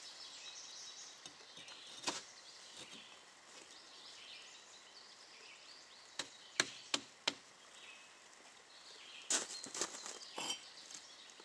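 Sharp clicks and knocks of firebricks being set and tapped into place on a kiln wall: a single knock about two seconds in, four quick ones a little past the middle, and a cluster near the end. Birds chirp faintly throughout.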